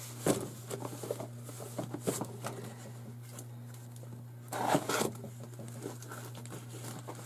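Plastic packaging rustling and crinkling while a box of paint bottles is unpacked by hand, with scattered light knocks, and a longer tearing rustle about four and a half seconds in. A steady low hum runs underneath.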